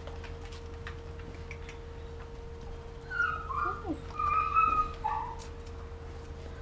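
A dog whining: a short run of high whimpers, some sliding down in pitch, for about two seconds midway, over a faint steady hum.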